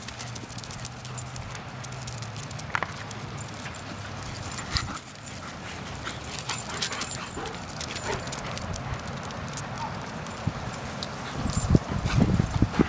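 A saluki and a German shepherd galloping on grass: irregular thuds and patter of their paws, with a cluster of louder, low thumps near the end as they come close.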